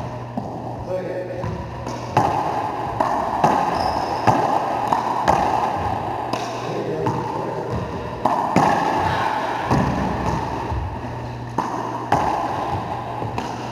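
Racquetball rally: sharp smacks of the ball off racquets and the court walls, a hit every second or so, each ringing out in the hard-walled court, over a steady low hum.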